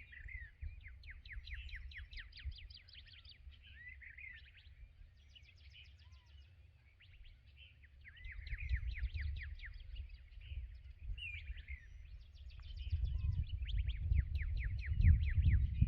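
Songbirds singing: a string of fast trills, each a rapid run of short sweeping notes lasting about a second, with single curved call notes between them. A low rumble sits underneath and grows louder near the end.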